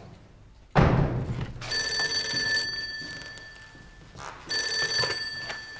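A thump just under a second in, then an old desk telephone's bell ringing twice: a longer ring that dies away, then a shorter ring near the end.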